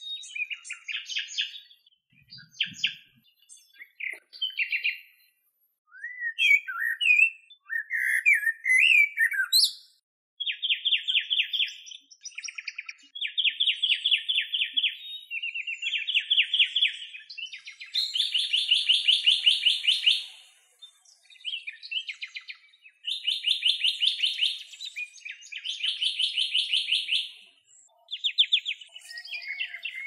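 Wild songbirds singing: varied chirps and whistled glides, then from about ten seconds in a series of rapid trills of one repeated note, each lasting one to two seconds, with short gaps between them.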